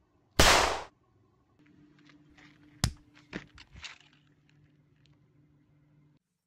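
A single gunshot from a handgun: one short, sharp blast about half a second in. A couple of seconds later comes a sharp crack, then a few softer knocks over a low steady hum, and the sound cuts off abruptly about six seconds in.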